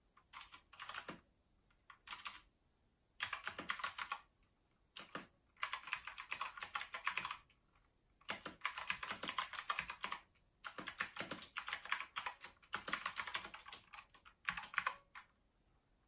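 Leobog K21 mechanical keyboard with blue switches being typed on: quick runs of clicky keystrokes lasting up to about two seconds, broken by short pauses, and falling quiet about a second before the end.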